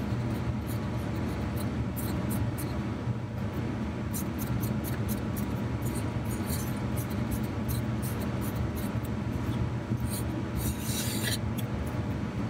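Fingers rubbing and scraping old silicone adhesive off a wooden block, a continuous scratchy rubbing with small ticks that gets busier near the end, over a steady low hum.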